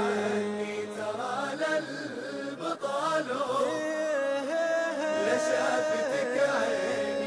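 Arabic song playing: a sung melody with long, ornamented held notes over musical accompaniment.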